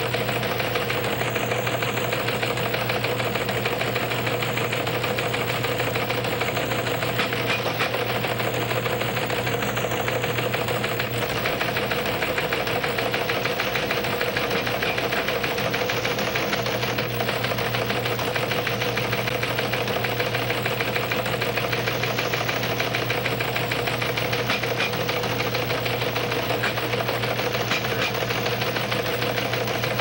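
A steady, dense machine clatter over a low hum, even in level throughout, cutting off suddenly at the end.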